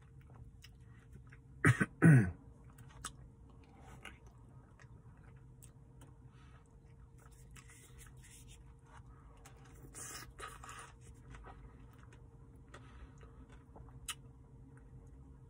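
Mouth sounds of a person eating a cherry-dipped soft-serve cone: bites cracking the hard cherry coating and chewing. About two seconds in comes the loudest sound, a short vocal sound like a cough or grunt, falling in pitch.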